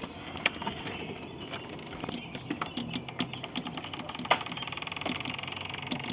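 In-shell peanuts being grabbed by hand close to the microphone: irregular light clicks and rattles, with a quicker run of rattling near the end and one sharper click a little past the middle.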